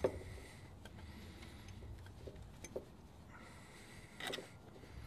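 Compression tester hose being threaded into a spark plug hole by hand: faint clicks and light knocks of the fitting and hose against engine parts, with a sharp click right at the start and a brief rattle about four seconds in.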